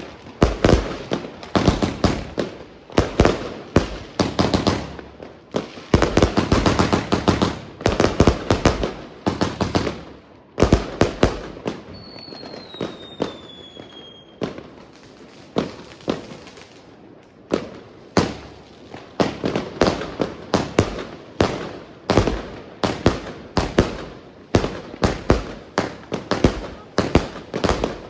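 Consumer fireworks going off: rapid volleys of sharp bangs and cracks in close clusters. A brief lull near the middle carries a few falling whistles before the volleys resume.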